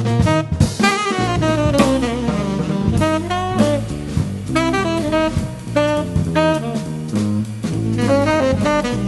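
Jazz saxophone trio playing: saxophone melody lines over electric bass and drum kit.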